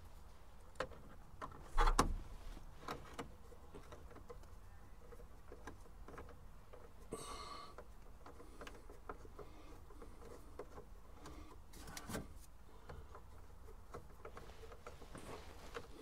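Faint clicks and knocks of a hand screwdriver and screws against a plastic dashboard as gauge cluster screws are started by hand, with a louder knock about two seconds in and a brief rasp about seven seconds in.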